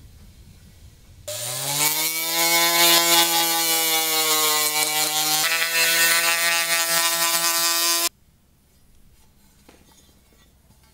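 Small pen-style electric rotary tool spinning up with a rising whine about a second in, then running steady at speed before stopping suddenly after about seven seconds.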